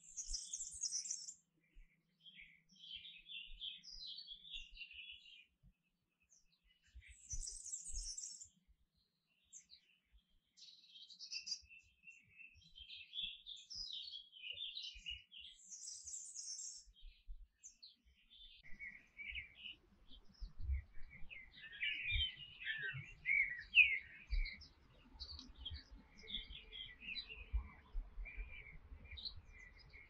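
Domestic canary singing: a run of varied chirped phrases broken by three short, very high trills. From about two-thirds of the way through, soft thumps from birds hopping and fluttering in the wire cage come in under the song.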